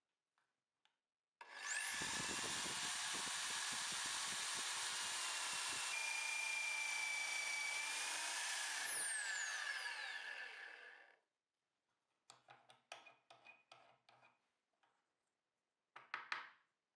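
Electric drill in a drill press stand boring into plywood with a 20 mm Forstner bit, running steadily for about seven seconds with a motor whine, then winding down with a falling pitch. Afterwards a run of light knocks and clicks and a brief scrape as the wooden workpiece is handled.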